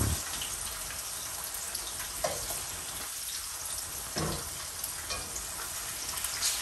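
Food sizzling steadily in a frying pan while a fork turns it.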